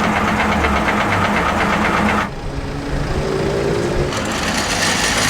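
Car engines running, the first with a fast, even pulsing beat that cuts off abruptly about two seconds in; a quieter, different engine sound follows, and the sound fills out again near the end.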